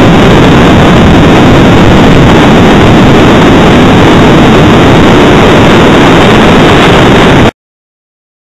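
Airbus A380 jet engine noise: loud and steady, overloading the recording, then cutting off suddenly near the end.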